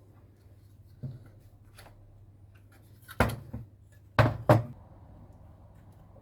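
Sharp knocks and clicks of objects being handled and set down on a workbench. There is one about a second in, a louder one past the three-second mark, and two close together after four seconds, over a steady low hum.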